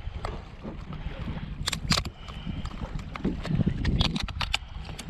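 Wind rumbling on the microphone of a plastic fishing kayak. Clusters of sharp clicks and knocks come from handling the crab and a cutting tool, a few about two seconds in and a quicker run about four seconds in.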